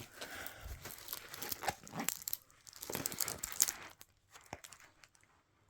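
Crinkling and rustling of a diamond painting canvas and its shiny plastic cover film as it is handled and lifted, dying down about four seconds in to a few faint taps.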